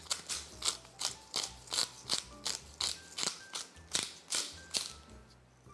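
Hand pepper mill being twisted, grinding peppercorns: a quick run of ratcheting crunches, about three a second, that stops near the end.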